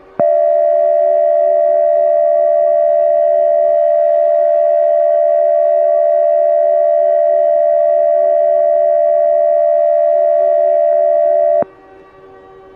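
Emergency Alert System two-tone attention signal: a loud, steady alarm tone that starts sharply and cuts off abruptly after about eleven seconds. A faint steady hum remains under it and after it.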